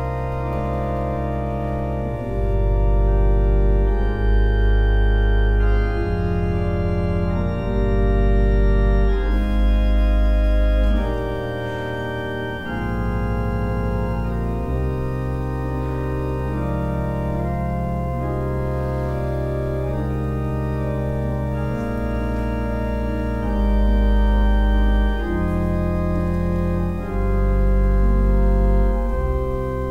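Slow organ music: long held chords over a deep bass line that moves every second or two, swelling louder several times when the lowest notes come in.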